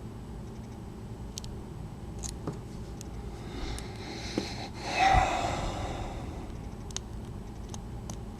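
Faint, scattered clicks of a lock pick and tension wrench working the pins of a spool-pinned Papaiz padlock. About five seconds in, a loud breath from the person picking rises over them.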